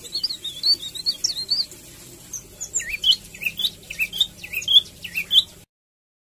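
Jongkangan birdsong played as a pancingan lure to set a caged bird singing: a fast run of high, chirpy twittering, then a string of sharp down-slurred whistled notes, cutting off abruptly near the end.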